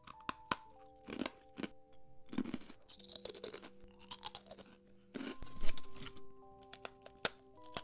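Close crunching of crispy Japanese crackers being bitten and chewed, in bursts of crisp cracks with the loudest bite a little over halfway through. Soft background music with slow held notes plays underneath.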